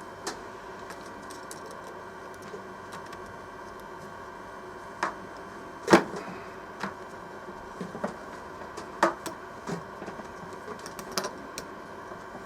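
Scattered small clicks and taps of tools and small parts being handled on a workbench, the sharpest about six seconds in, over a steady hum.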